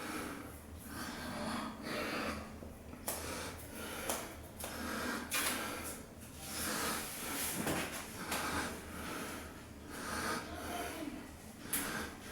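A man breathing, a breath swelling and fading about every one to two seconds, with scattered small clicks and rustles of handling.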